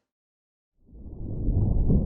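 Silence for nearly a second, then a low, steady rumble fades in, ambience noise with no clear events in it.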